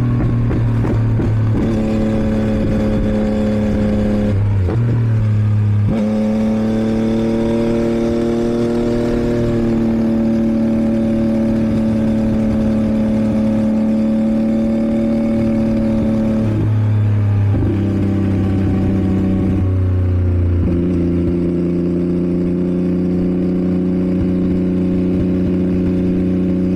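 2022 Yamaha MT-09's 890 cc inline-three engine running through a Roadsitalia homologated exhaust with catalyst, under way at fairly steady revs. The pitch steps down or up several times as gears change and the throttle is opened or eased.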